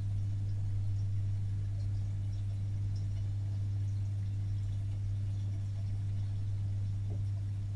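Steady low hum picked up underwater in a fish tank, unchanging, with a fainter higher tone above it and a few faint scattered ticks.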